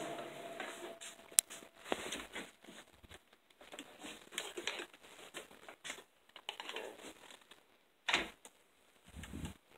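Faint clicks, taps and rustles of things being handled on a kitchen counter, with a sharp click about a second and a half in and a louder knock about eight seconds in.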